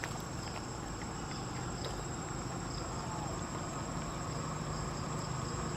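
Insects trilling steadily in a high, thin chorus, one of them pulsing.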